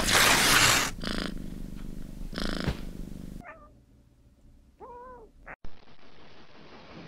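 Cat purring sound effect, with a swish of noise at the start, stopping abruptly after about three and a half seconds. A short meow about five seconds in, then a click and faint steady hiss.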